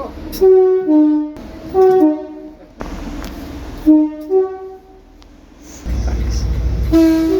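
British train two-tone horns in a run of short blasts, each a pair of notes, the first two stepping from high to low and the third from low to high. About six seconds in a loud low rumble of a train takes over, and another two-note horn blast starts near the end.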